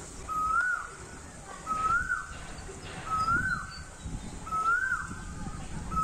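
A bird calling, repeating one short note that rises and then drops, five times at an even pace of about one every second and a half.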